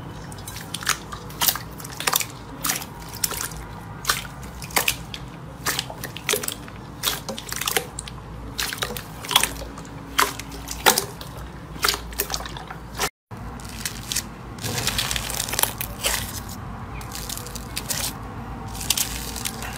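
Clear slime squeezed and pressed by hand in a bowl, giving irregular wet squelches and sharp popping clicks. After a brief silent break about two-thirds through, a bubbly, foam-covered slime is worked by a finger, with denser crackling pops.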